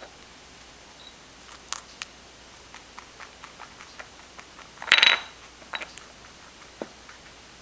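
Teach N Treat puzzle cups tapping and clicking as guinea pigs nudge them, with one louder clatter about five seconds in as a cup is knocked over and rolls against another.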